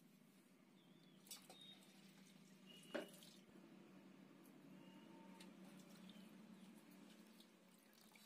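Faint splashing and dripping of water as bottle gourd leaves are rinsed by hand in a steel bowl, with a sharper splash or knock about three seconds in.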